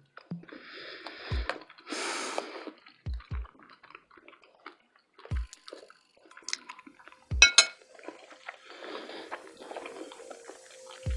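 Close-miked ASMR eating and drinking sounds: wet mouth and liquid noises, a few soft low thumps, and a sharp clink about seven and a half seconds in, the loudest moment.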